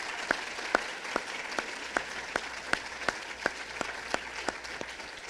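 Audience applauding, with one pair of hands close by clapping louder at a steady beat of about two to three claps a second.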